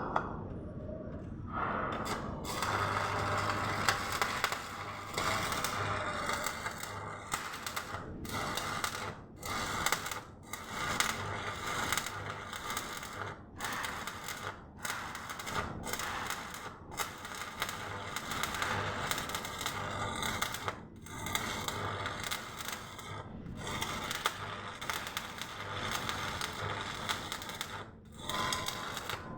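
Electric arc welding: the arc's steady crackle and hiss with a faint low hum, cut off for a moment and struck again many times, every one to two seconds.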